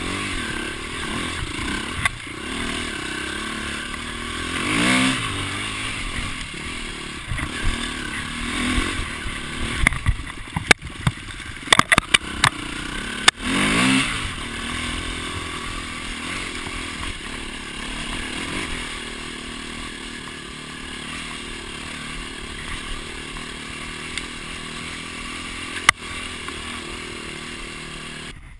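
Enduro motorcycle engine running on a rough forest trail, its pitch rising and falling as the throttle opens and closes. A run of sharp knocks and rattles comes about halfway through.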